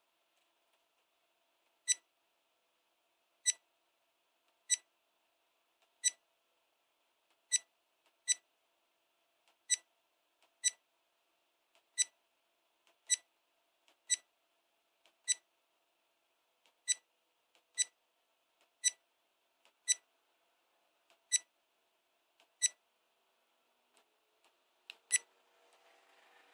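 SJ6000 action camera's key beeps: a short, high electronic beep with each button press while scrolling through its settings menu, about twenty in all at an uneven pace of roughly one a second, with two in quick succession near the end.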